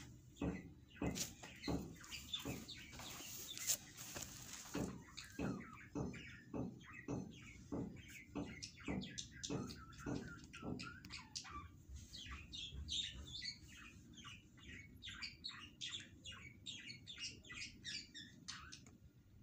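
Small birds chirping over and over, faint; about halfway through the chirps turn into a quicker run of high notes.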